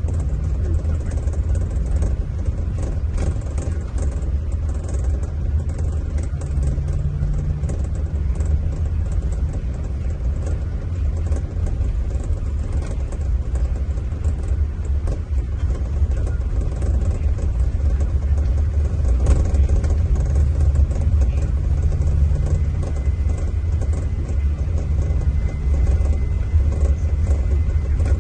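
Scania diesel engine of a Marcopolo Paradiso 1800 DD G7 double-decker coach running, a steady low drone with a faint hum rising in and out.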